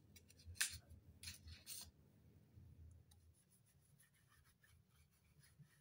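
Faint crinkling and crackling of an alcohol wipe sachet being torn open and handled, with a few sharp crackles in the first two seconds, then softer rustling and rubbing of the wipe.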